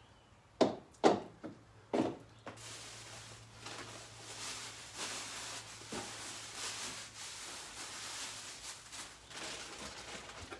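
Three sharp knocks in the first two seconds, then steady rustling and crinkling as hands dig through packing material in a cardboard box.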